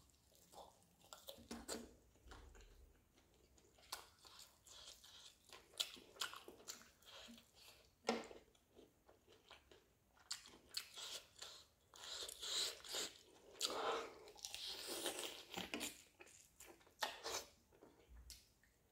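A person chewing and biting roasted chicken: irregular wet mouth clicks and crunches, with a busier run of chewing about two-thirds of the way through.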